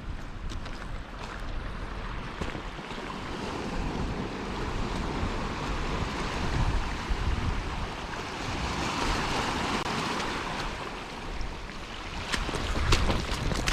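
Sea waves washing against a rocky shore, swelling through the middle, with wind buffeting the microphone. A few sharp clicks near the end.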